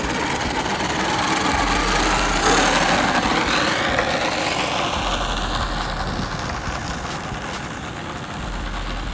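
1350 kV brushless motor and drivetrain of a Redcat Earthquake 8e RC car with a 30-tooth pinion, whining as the car accelerates hard away. The whine rises quickly in pitch over the first few seconds, then drops and fades as the car gets farther off.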